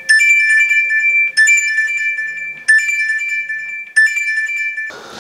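Smart meat-thermometer alarm ringing from a smartphone's speaker: a chiming alert tone repeated four times, about every 1.3 seconds, then stopping. It signals that the probe has reached the target temperature and the pork is done.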